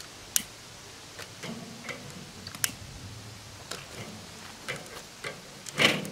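Scattered light clicks and taps of hands at work as charcoal in a Weber kettle grill is being lit, with one louder short burst of noise near the end.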